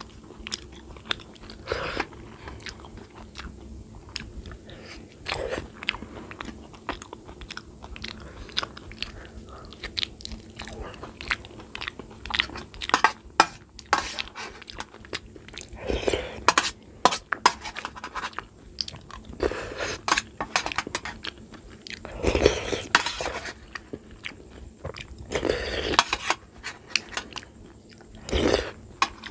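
A person eating: repeated chewing and mouth sounds from a meal of rice and curry, with several louder, longer bursts in the second half.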